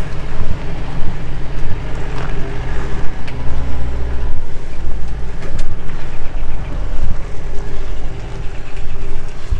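Mahindra Bolero Pik-Up's 2.5-litre diesel engine running under load as the loaded pickup climbs a steep dirt track in four-wheel drive.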